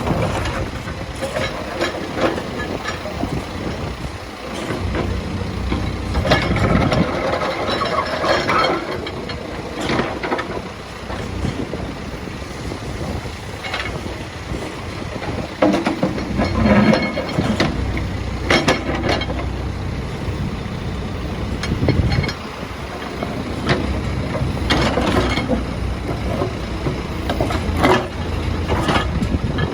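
Diesel engine of a Case 851EX backhoe loader running, swelling louder several times as it works, with a few sharp knocks in between.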